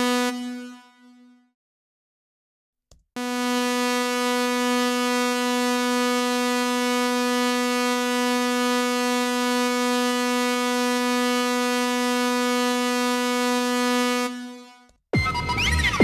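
Software synthesizer (Spectrasonics Omnisphere) sounding one steady root note, bright and rich in overtones. It plays briefly and cuts off, then the same note is held for about eleven seconds before fading. Near the end a different preset starts, with whistling pitch glides.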